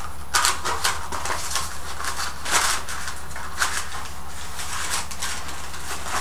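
Irregular rustling and light handling noises, a few sharper strokes among them, as objects are handled at a kitchen stove, over a steady low hum.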